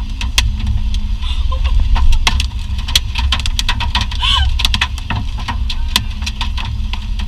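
Vehicle noise: a steady low rumble with many irregular sharp clicks and taps.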